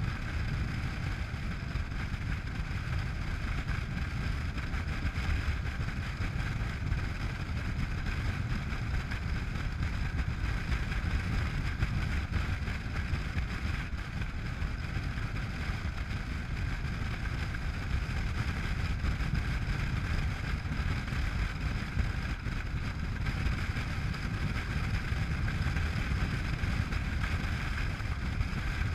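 Honda NC700X motorcycle cruising at a steady speed: the drone of its parallel-twin engine mixed with wind rushing over the microphone, holding even with no revving or gear changes.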